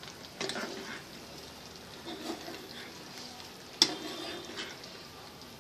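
Chicken 65 gravy simmering and sizzling in a frying pan as it thickens with added cornflour water, stirred with a spoon. A sharp clink of the spoon against the pan about four seconds in.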